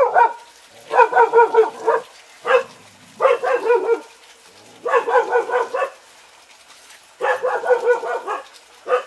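A dog barking in quick runs of short, high barks, a new run every second or two.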